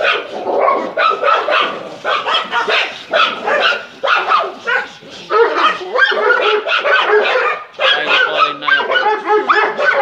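Rapid, continuous dog barking, several barks a second with only brief pauses.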